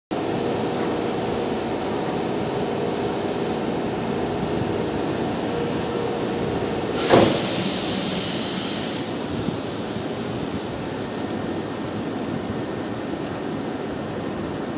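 Railway station ambience: a steady train hum with a few faint steady tones. About seven seconds in, a sudden sharp hiss lasts about two seconds.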